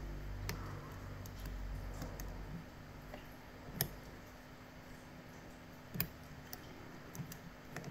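Faint, scattered metallic clicks and ticks of a lock pick working inside a Laperche Rols lock, a few separate clicks several seconds apart with the sharpest about 4 and 6 seconds in.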